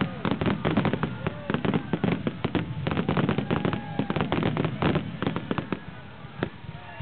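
Aerial fireworks shells bursting in rapid succession: a dense run of bangs and crackles, many a second, that thins out and grows quieter over the last second or so.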